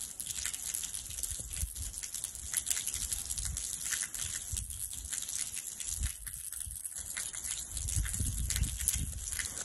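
Water from a garden hose running and splashing onto the floor of an empty concrete swimming pool at the start of filling, a steady hiss, with irregular low rumbling underneath.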